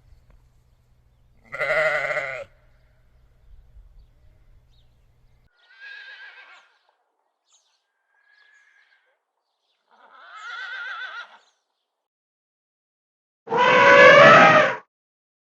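Goats or sheep bleating: a series of separate quavering calls, a few seconds apart, getting louder, with the loudest and longest call near the end.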